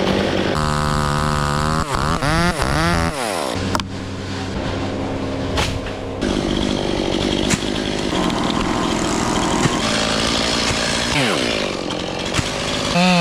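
Chainsaw running and being revved: its engine pitch holds high, swings up and down a few times about two seconds in, then runs on and drops back near the end.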